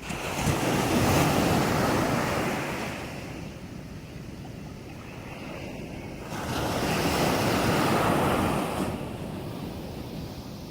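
Sea waves breaking on a beach, two of them: one surging in suddenly at the start and fading after about three seconds, another building about six seconds in, over a steady background wash of surf.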